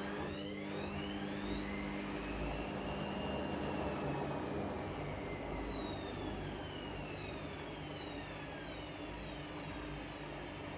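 Washing machine motor whining as the drum turns: the whine rises in pitch over about three seconds, then falls slowly for about six, over a steady low hum and the churn of the wash.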